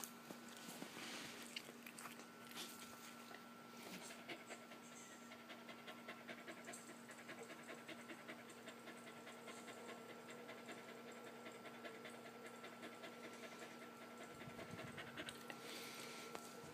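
Part-German Shepherd dog panting quickly and evenly, close to the microphone.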